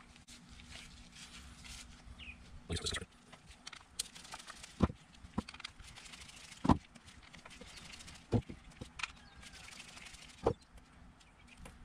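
Small steel screws and a screwdriver clicking and knocking on a wooden workbench while screws are backed out of an outboard carburetor body and set down: scattered sharp taps, about eight of them, the loudest a little past halfway.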